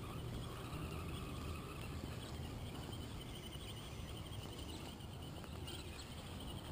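Axial SCX10 radio-controlled crawler driving on grass: a faint whine from its brushed electric motor and gears, shifting pitch as it moves, over a low steady background hum.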